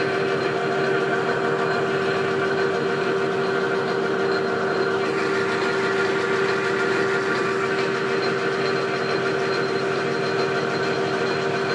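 Metal lathe running at steady speed with its spindle turning, giving an even machine hum with a strong steady tone, while the grooving tool is brought in to touch off on the brass workpiece.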